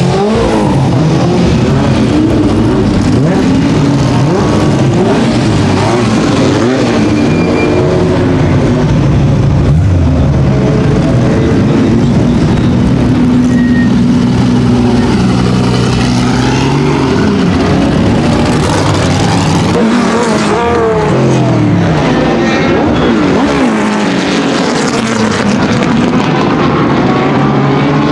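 Several historic racing-car engines, among them a Porsche 908/03's flat-eight, running loud as the cars pull away and drive past one after another, their revs repeatedly rising and falling.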